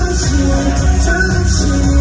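Male singer singing a pop song live into a microphone over a loud backing track with heavy bass and a steady beat.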